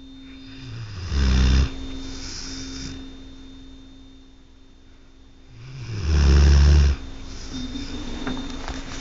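A sleeping dog snoring: two loud snores about five seconds apart, with softer breath sounds between them.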